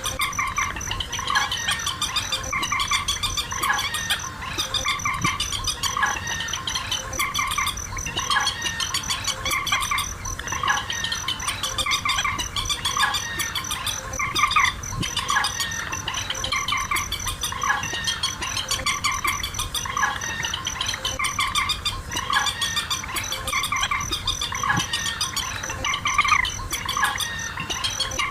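Rails, waterhen and swamphen, calling over and over in a steady stream of short, sharp notes, the kind of looped call track played as a lure for net-trapping. Under them runs a steady, high, pulsing cricket trill.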